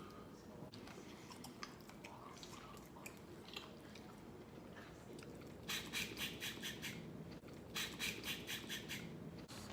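Quiet eating sounds, chewing and mouth clicks, at close range. Past the middle and again near the end come two runs of rapid hissy bursts, about six a second and each about a second and a half long.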